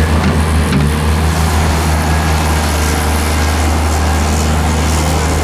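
Hyundai Robex 290LC-3 crawler excavator's diesel engine running steadily with a deep, even hum while it works.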